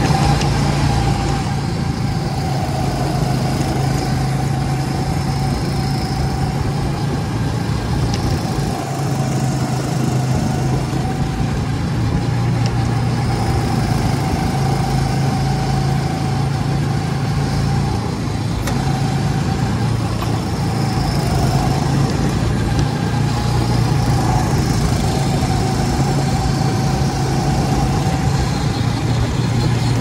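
Go-kart engine running steadily at speed, heard from the driver's seat: a continuous drone with a whine that wavers slightly in pitch as the kart takes the corners.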